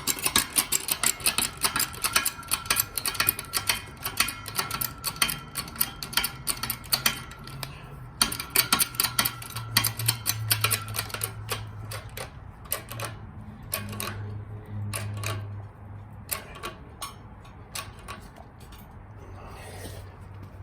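Rapid mechanical clicking from the press set-up being worked to push the ball joint rivets through a C4 Corvette aluminum control arm, dense at first and thinning out after about eight seconds, with a low hum underneath.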